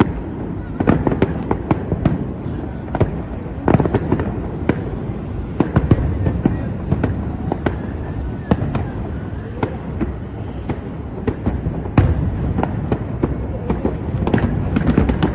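Many fireworks going off at once: a continuous dense rumble of bangs with frequent sharp cracks at irregular intervals.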